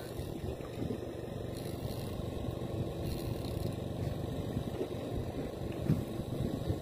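A boat's engine running steadily, a low even drone, with faint scattered clicks over it.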